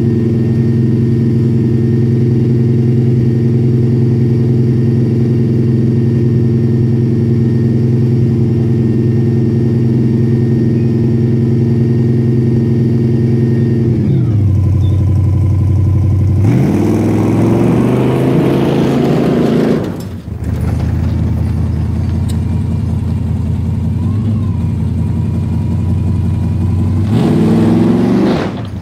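Old red pickup truck's engine running loudly at a steady speed, then slowing about 14 seconds in and revving up twice, once in the middle and again near the end.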